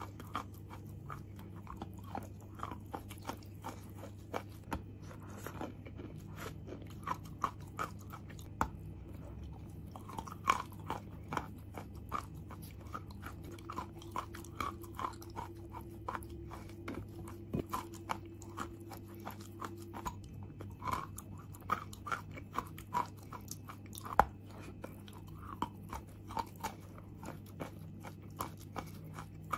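Chalk being bitten and chewed close to the microphone: many short dry crunches and crumbling crackles, coming in quick clusters, over a steady low hum.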